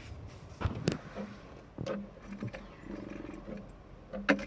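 Rummaging for washers among small hardware: a run of irregular clicks and knocks, with a short buzzy rasp about three seconds in.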